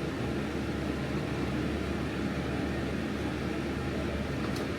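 Steady low hum and hiss of a running machine.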